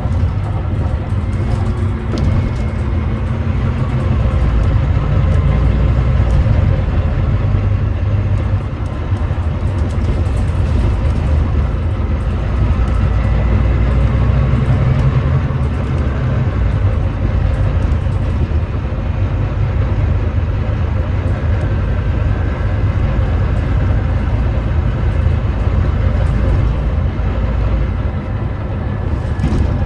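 Volvo D9B 9.3-litre diesel engine of a Volvo B9TL double-decker bus running steadily under way, a low continuous drone with road noise.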